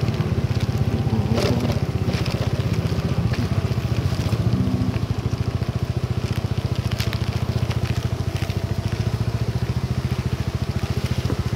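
Motorcycle engine running steadily with a rapid low pulse while riding through heavy rain, over a hiss of rain and wind on the microphone, with scattered sharp ticks.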